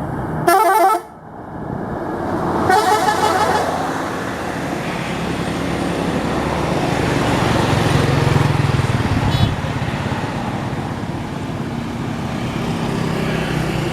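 A bus air horn sounds two blasts: a short loud one about half a second in and a longer one about three seconds in. Steady traffic and engine noise follow.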